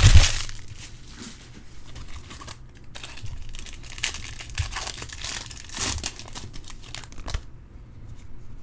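Foil trading-card pack wrapper crinkling and tearing as it is ripped open and handled, in spells of crackling that stop near the end. There is a sharp knock at the very start.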